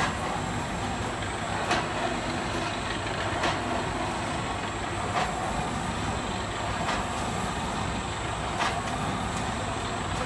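Continuous carbonization furnace plant running: a steady mechanical noise with a short click or knock repeating about every 1.7 seconds and a faint high whine.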